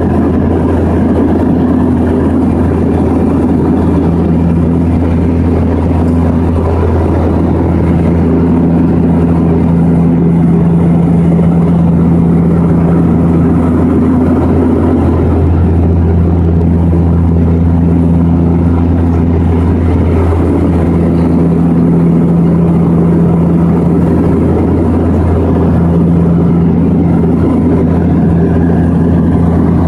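Seaplane's propellers and engines droning steadily in flight, heard inside the cabin, with a hum that swells and fades every five seconds or so.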